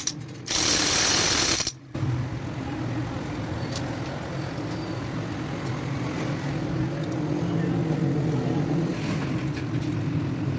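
A pneumatic impact wrench runs in one burst of about a second, spinning down a nut beside the clutch of a Honda CG 125 engine. After it, a steady low workshop hum with a few faint clinks of tools.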